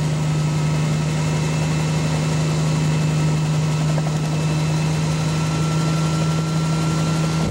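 Steady drone of a helicopter's engine and rotors in flight, heard from inside the cabin with the door off, with a constant deep hum.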